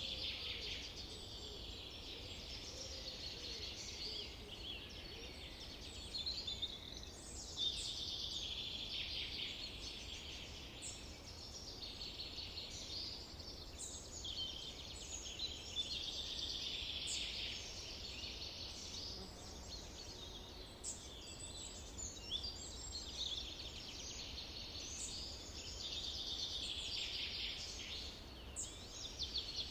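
Forest birds singing together in a dense chorus of overlapping chirps, trills and quick rising notes that swell and ease every few seconds, over a steady low rumble.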